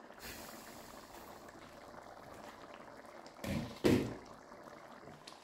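Thick lamb trotters and bean curry simmering and bubbling softly in an uncovered pan. Two short, louder knocks come close together a little past halfway.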